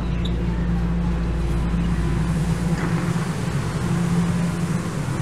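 Subway train running, heard from inside the car: a steady low rumble with a constant motor hum, the deepest rumble easing off about halfway through.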